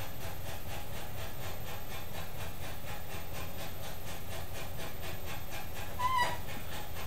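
Electric hub-motor wheel spinning freely on supercapacitor power: a steady hiss-like whir with a faint regular pulse. A brief high squeak about six seconds in.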